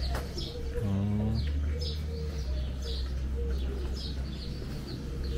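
Small birds chirping in quick, short, high calls, several a second, with one brief lower call about a second in, over a steady low hum.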